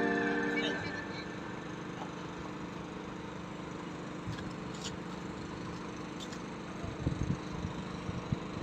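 A piano chord fades out in the first second, leaving a boat's engine running steadily with a low hum and a faint held tone. A few short knocks come about seven seconds in.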